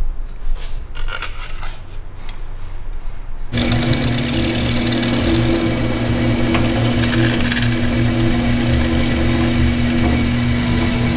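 Light metallic clicks and handling knocks, then about three and a half seconds in a bench drill press starts and runs with a steady hum, drilling a hole through a cord-wrapped sword handle.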